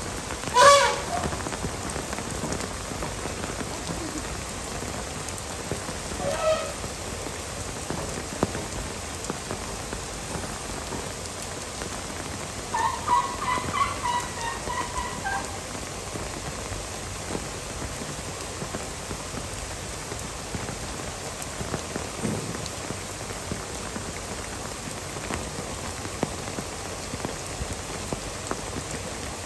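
Heavy rain falling steadily in a downpour. A few brief pitched calls stand out over it: one near the start and a longer, wavering one about halfway through.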